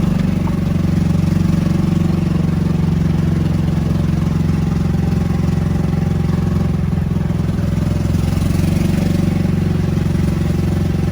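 Small vehicle engine running steadily at an even speed, a low continuous hum.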